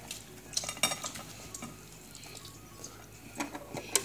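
Scattered light clicks and clatter of dishes and food being handled during a meal, a few separate knocks spread over the few seconds.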